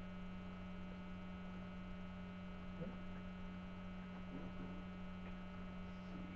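Steady electrical mains hum, with a couple of faint light ticks partway through.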